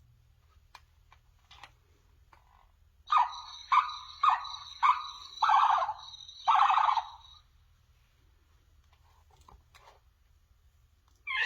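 Novelty sound book's little electronic speaker playing a recorded animal call, six short calls in a row lasting about four seconds, with a thin steady electronic tone running through them. A few faint clicks of the book being handled come before it.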